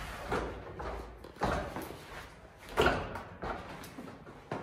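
A few knocks and bangs, the loudest about three seconds in, from a folding treadmill being handled and moved indoors.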